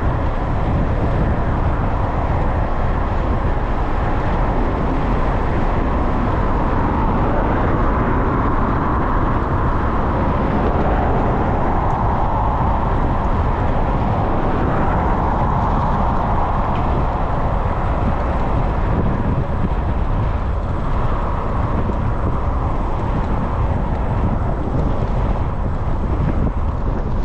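Wind buffeting the microphone while riding a bicycle along a road: a loud, steady rush of noise.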